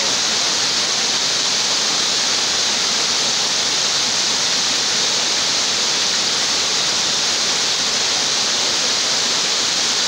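Broad waterfall dropping about 15 m off a limestone ledge into a deep pool: a steady, even rush of falling water.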